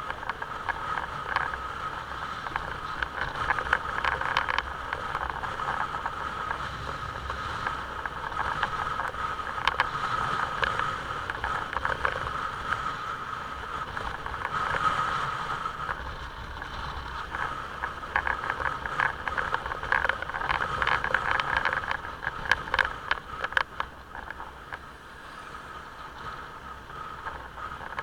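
Motorcycle riding on the road, heard from a camera mounted on the bike: engine and road noise with a steady whine and frequent small clicks and rattles. It gets quieter near the end as the bike slows.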